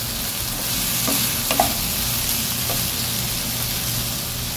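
Vegetables sizzling steadily in olive oil in a frying pan while a wooden spatula stirs them, with a few light knocks of the spatula against the pan.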